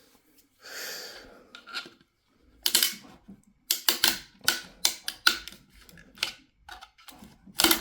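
3D-printed plastic support material being snapped and clipped off a print: a series of sharp, irregular snaps and clicks as pieces break away, after a short hiss about a second in.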